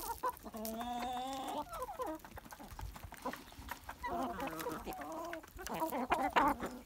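A flock of chickens clucking and calling close by. There is one drawn-out call from about half a second in, lasting about a second, then a run of overlapping clucks from about four seconds in. Underneath are many short sharp taps of beaks pecking grain from the ground.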